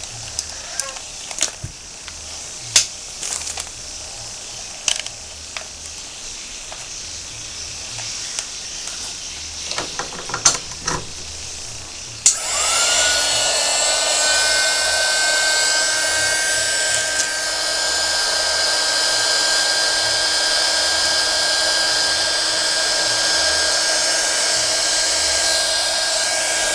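Plastic packaging rustling and clicking as it is handled, then about halfway through a switch clicks and a 300 W mini hot-air heat gun starts up: its small fan motor runs steadily with a blowing hiss and a whine that rises briefly as it spins up.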